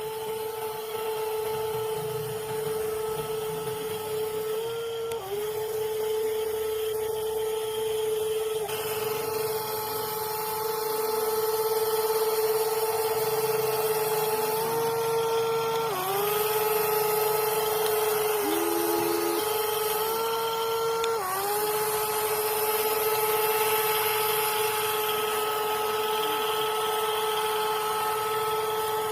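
Electric drive of a WLtoys 16800 metal RC excavator running as a steady high whine, its pitch sagging briefly several times before recovering as the motors take load.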